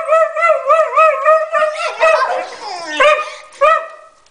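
Welsh Springer Spaniels yelping in a quick run of short, high-pitched cries, about four or five a second, tangling together in the middle and tailing off near the end. It is the excited yelping of dogs that want to be let outside.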